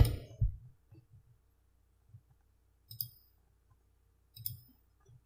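A few computer mouse clicks: a sharp one right at the start, then fainter ones spaced a second or more apart, with a quiet room between them.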